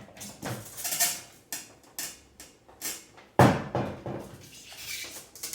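Handling knocks and clatter while a washing machine is moved and its hoses are fitted: several sharp knocks and scrapes, with one hard thump about three and a half seconds in.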